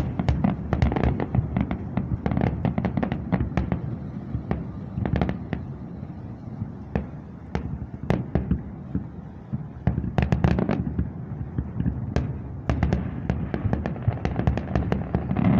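Aerial fireworks display: a continuous run of booms and sharp cracks, some single and some in rapid crackling clusters, over a low rolling rumble, with a thicker burst of reports near the end.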